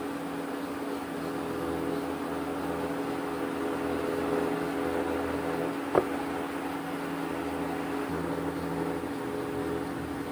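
Steady mechanical hum of a small motor, with one sharp click about six seconds in.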